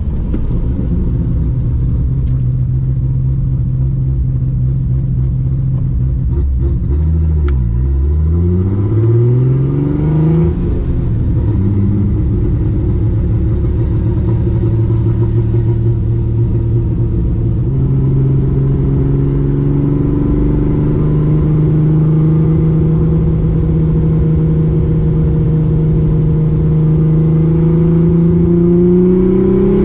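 Nissan R32 Skyline GT-R's RB26 straight-six, converted to a big single BorgWarner turbo, heard from inside the cabin while driving. Its revs hold steady, drop about seven seconds in and climb again over the next few seconds, step up a little past halfway, and start rising near the end as it accelerates.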